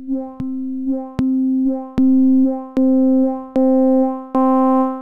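Logic Pro's ES1 software synthesizer playing the note C again and again, about six notes under a second apart, each a little louder and brighter than the last. The filter cutoff is tied to note velocity, so softer notes sound duller and harder-struck notes brighter.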